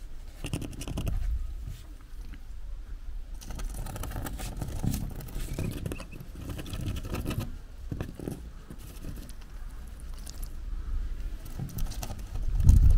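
Soft, irregular tapping and scraping of Muscovy ducklings' bills on cardboard as they nibble and preen, over a low rumble that grows louder near the end.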